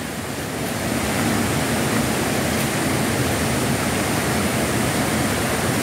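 Steady rushing of water from a creek's rocky cascades, an even wash of noise with no distinct events.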